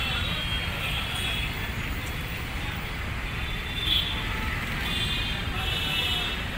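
Outdoor street background: a steady low rumble of road traffic, with a brief higher sound about four seconds in.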